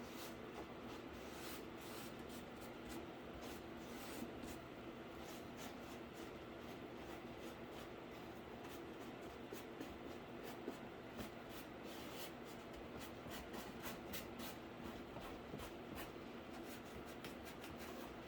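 Paintbrush scratching over a cardboard PC case: faint, many short scratchy strokes that come thicker in the second half, over a steady low hum.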